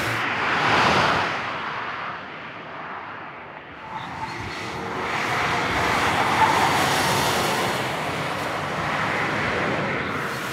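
2014 Subaru Forester XT with its turbocharged 2.0-litre flat-four passing at speed, mostly a rush of tyre and wind noise that swells and fades twice.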